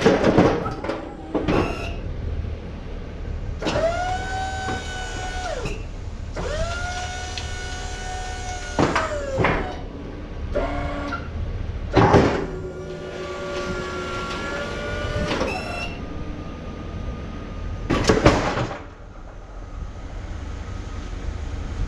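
Fisher XLS snowplow's electric hydraulic pump whining in three runs of a few seconds each, the pitch sagging as each run stops, while the plow's wings move out and back and the blade lifts. A few sharp clunks from the plow come between the runs over the truck idling.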